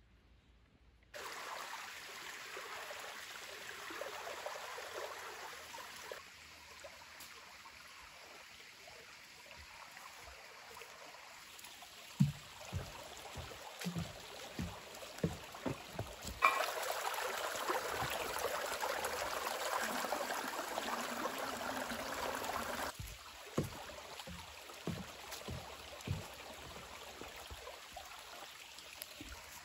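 Small creek running steadily, with footsteps thudding on a wooden plank footbridge and then on the leafy trail. In the middle, for about six seconds, the water noise is louder and closer.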